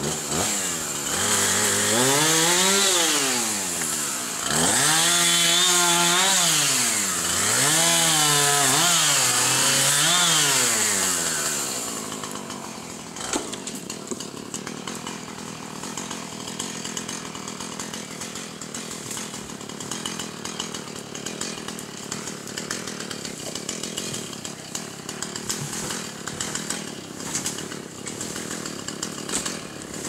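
Husqvarna two-stroke chainsaw revving up and down through cuts, rising and falling in pitch about four times. After about twelve seconds it gives way to a quieter, clattery background full of small clicks.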